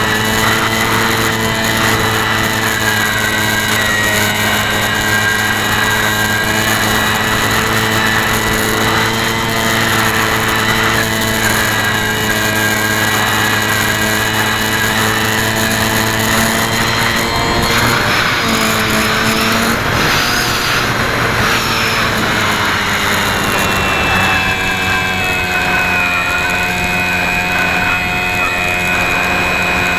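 A radio-controlled model airplane's motor and propeller running steadily, heard from a camera on board with air rushing past. The pitch wavers and shifts slightly about two-thirds through as the throttle changes.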